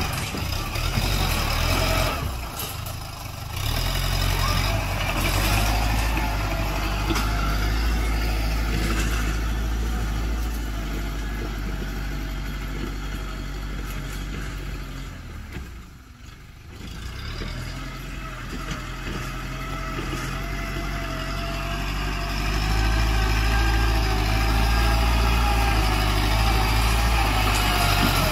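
Farm tractor's engine running steadily while it pulls a disc plough through dry, clumpy soil, with a low hum and a wavering whine above it. The sound drops away briefly about three seconds in and again around the middle, and grows louder near the end.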